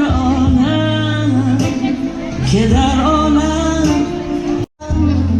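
A Persian song: a singer's voice over steady, held bass notes. The sound cuts out completely for a moment about four and a half seconds in.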